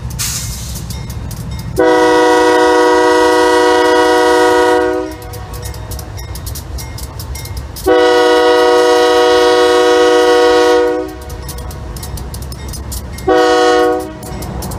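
Nathan K3LA five-chime air horn on a GE C44-9W diesel locomotive, sounded as two long blasts and then a short one: the long-long-short opening of the grade-crossing signal. The locomotives' low rumble carries on between the blasts.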